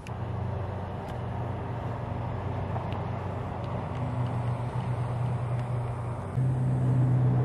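An engine running steadily at a low hum, which gets louder and slightly higher in pitch about six seconds in.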